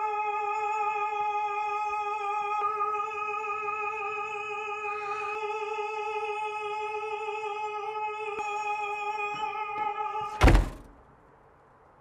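A single operatic note, sung and held with vibrato for about ten seconds. It is cut off by a loud thunk of a door slamming shut.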